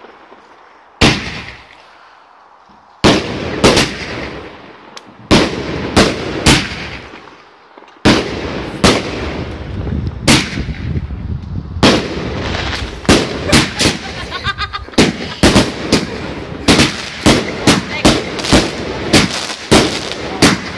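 Aerial fireworks going off. For the first eight seconds single loud bangs come about a second apart, then a rapid, dense run of bangs follows over a continuous rushing noise.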